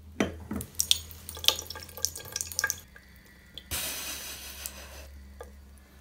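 A bathroom basin tap is opened with the mains supply cut off. A thin trickle spatters irregularly into the ceramic sink, and about four seconds in there is a short hiss from the tap. It is only the water left in the pipe running out.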